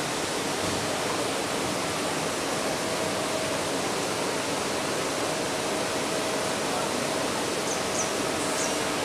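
Steady, even rushing noise like running water, with a faint steady hum under it and a few brief high chirps about eight seconds in.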